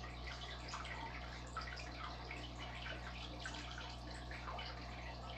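Faint aquarium water sounds: an irregular patter of small drips and bubble pops from the tank's water circulation, over a steady low hum.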